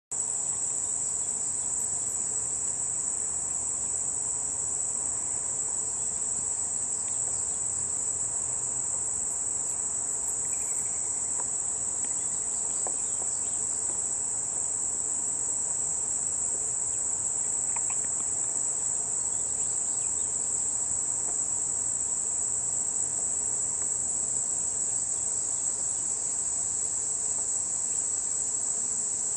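A steady, high-pitched insect chorus: an unbroken trill that keeps the same pitch and level throughout.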